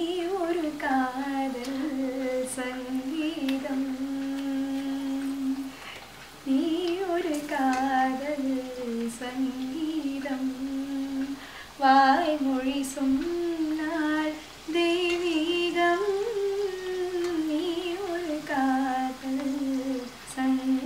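A woman humming a slow tune, with long held notes and gliding pitch, breaking off briefly a few times.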